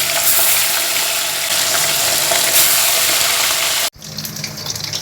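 Bata fish frying in hot oil: a loud, steady sizzle that cuts off abruptly about four seconds in and then resumes a little quieter.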